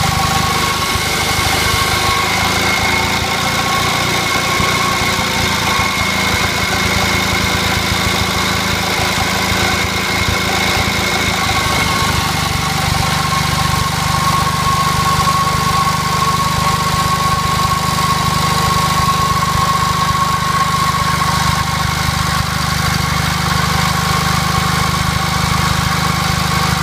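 J.A.P. model 55 stationary engine running a generator at a steady speed under electrical load, with a steady high whine over the engine's beat. The sound shifts slightly about twelve seconds in.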